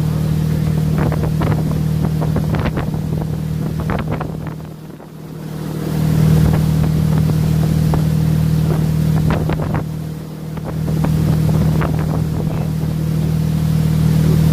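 Tow boat's engine running steadily at speed, with wind on the microphone; twice the sound briefly dips and comes back.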